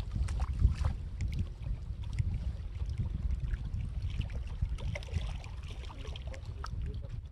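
Low, steady wind rumble on the microphone, with light water sloshing and scattered small clicks.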